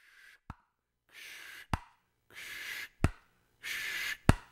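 A person's mouth noises: a short breathy hiss followed by a sharp click, repeated four times at an even pace of about one pair every second and a quarter.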